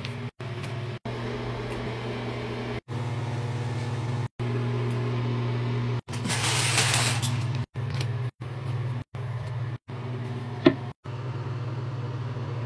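A steady low mechanical hum that drops out briefly many times at cuts. About six seconds in comes a short rush of hiss, and a single sharp click follows near the end.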